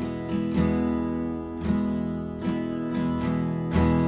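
Acoustic guitar strumming chords, with regular strokes.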